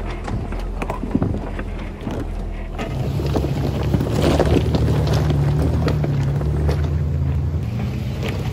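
Off-road vehicle engine running at a low crawl over a rocky trail, with rocks crunching and clicking under the tyres. About three seconds in the sound cuts to a louder, deeper steady engine drone of a Toyota FJ Cruiser crawling over the rocks, with more crunching.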